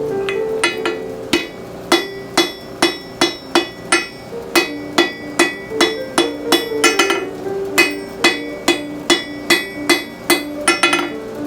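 Blacksmith's hammer striking steel on an anvil in a steady rhythm of about two ringing blows a second, after a few lighter taps at the start, while forging a fire poker end. Background music plays underneath.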